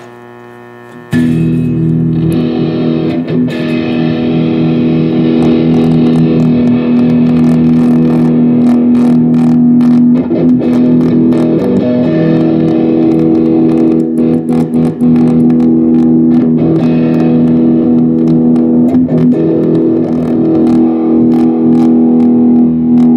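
Electric guitar played through a Behringer GMX212 solid-state modeling amp: a distorted chord comes in about a second in and is held, sustaining. The tone dips and crackles briefly a few times as the amp's dirty three-way switches and knobs are worked, a sign that they need cleaning or replacing.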